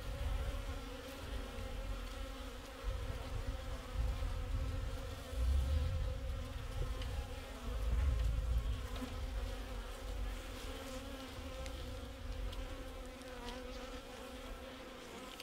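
A mass of honey bees buzzing in a steady hum, freshly released from their package into an open hive. A low rumble swells a couple of times underneath.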